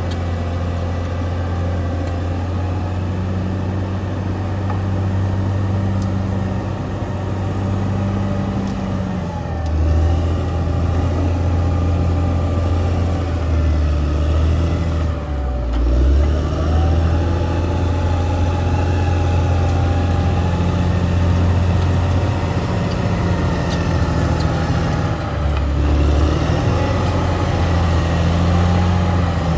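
Caterpillar D6R XL bulldozer's diesel engine running steadily at working revs. The engine note dips and recovers a few times, about ten, sixteen and twenty-six seconds in, with a higher wavering whine over it.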